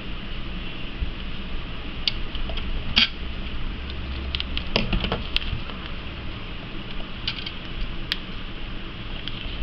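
Small sharp clicks and taps of metal tweezers and loose gemstones being handled, scattered through, the loudest about three seconds in and a quick run of them around five seconds in, over a steady low hum.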